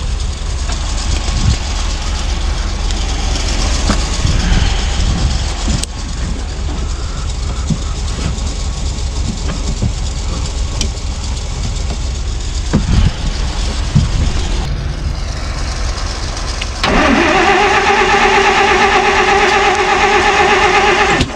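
Starter cranking the long-parked 1949 Plymouth's flathead six-cylinder engine: a steady whine that starts suddenly after a long stretch of noise with scattered knocks and runs for about four seconds before cutting off.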